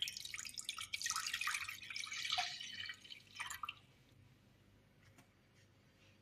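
Water being poured into a saucepan, splashing for about four seconds and then stopping.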